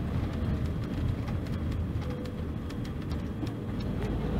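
Mercedes-Benz OC-500RF-1842 coach's rear-mounted six-cylinder diesel engine running steadily as a deep, even rumble, with faint light rattles over it.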